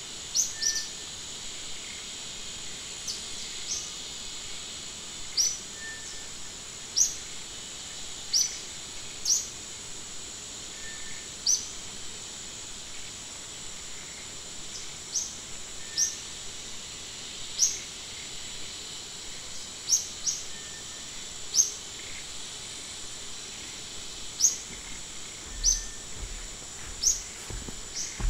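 Forest ambience: a steady high insect buzz, with a bird repeating short, sharp high chirps every second or two and a fainter, lower note every few seconds.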